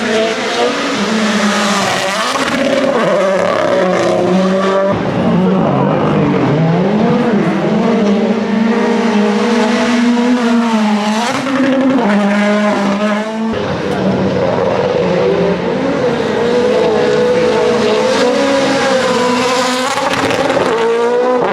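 Rally1 cars' turbocharged four-cylinder engines running hard, pitch rising and falling with the throttle and gear changes. The sound switches abruptly about five and again about thirteen seconds in, as one car gives way to the next.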